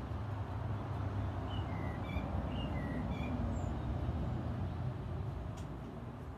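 Steady low outdoor rumble, with a small bird chirping a quick run of short notes between about one and a half and three and a half seconds in.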